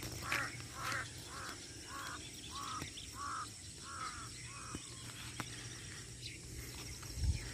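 A crow cawing in a quick series of short, even caws, about two a second, which stop about five seconds in.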